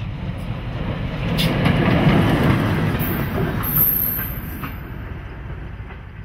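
Class 14 diesel-hydraulic locomotive D9526 passing close by with a train of ballast wagons and brakevans: engine running and wheels knocking over the rail joints, loudest about two seconds in, then fading away. A thin high wheel squeal comes in about three seconds in.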